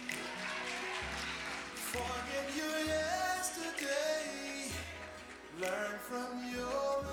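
Gospel song playing: a singer holding long, gliding notes over a bass line.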